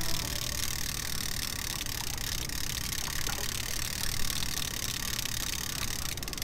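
Spinning fishing reel being cranked, with faint ticking over a steady outdoor hiss and low rumble.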